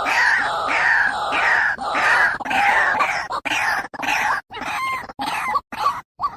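White-breasted waterhen (ruak-ruak) calling: a fast series of harsh, repeated notes, about three a second, that break up into shorter, separated notes in the second half.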